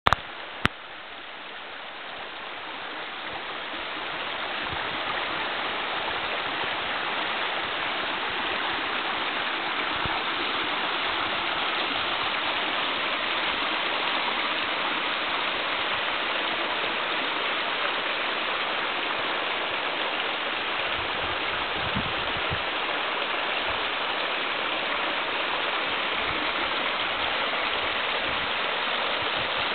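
Small snowmelt creek trickling and splashing over rocks and gravel, a steady rushing that grows louder over the first few seconds and then holds. A sharp click near the start.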